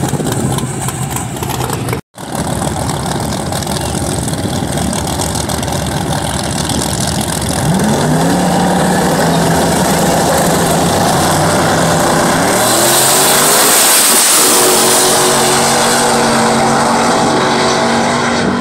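Two drag-racing cars' engines idling, then revving up and holding a steady pitch on the start line. About two-thirds of the way through comes a loud surge as they launch, and the engines wind up in pitch as they pull away down the strip. The sound drops out briefly about two seconds in.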